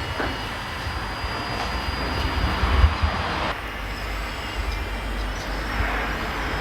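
Radio-controlled model construction machinery running: a steady high whine from small electric motors and gearing over a rumbling, clattering mechanical noise. The sound changes abruptly about three and a half seconds in.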